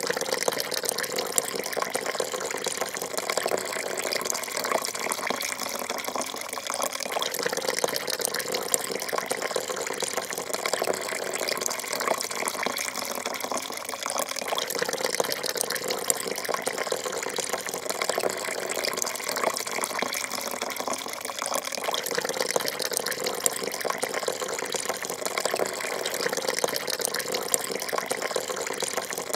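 A thin stream of coffee pouring steadily into a half-full porcelain cup: a continuous splashing trickle that does not let up.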